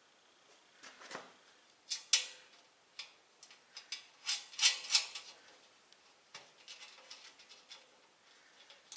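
Irregular metallic clicks and clinks of bolts, washers and nuts being fitted by hand into the sheet-steel panels of a welding cart, loudest about two seconds in and again around four to five seconds in.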